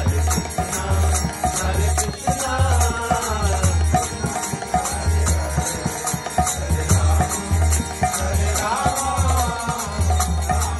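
Devotional kirtan: a harmonium playing with a steady quick clashing of kartals (small hand cymbals) over a low pulsing beat, and a male voice singing the chant in phrases about two seconds in and again near the end.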